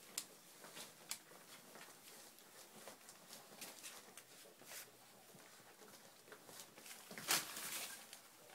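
Akita puppies scuffling on a sheet-covered box floor: scattered soft scratches and taps of paws and bodies on the bedding, with a louder rustle a little after seven seconds in.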